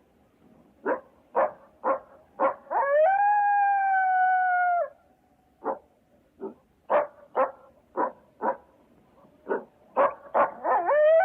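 A dog barking and howling: four short barks, then a howl of about two seconds that holds one pitch and dips as it ends. A longer string of barks follows, coming faster near the end and rising into a second howl.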